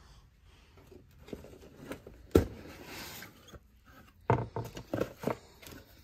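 A cardboard product box being opened by hand: a sharp knock about two and a half seconds in, a short sliding rub of cardboard, then a quick cluster of knocks and rustles near the end as the lid comes off.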